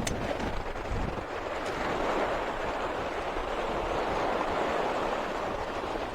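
Steady rush of wind and choppy storm waves on open water, with wind buffeting the microphone as a low rumble.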